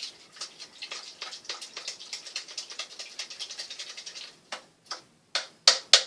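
A crumpled sheet, likely paper towel, being crinkled and crumpled in the hands: a dense run of fine crackling for about four seconds, then a few separate louder rustles near the end.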